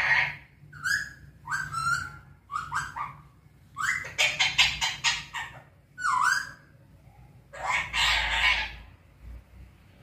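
Alexandrine parakeet giving a run of harsh squawks and chattering calls, several sliding up or down in pitch, with a quick stuttering burst about four seconds in and a longer rasping screech near eight seconds.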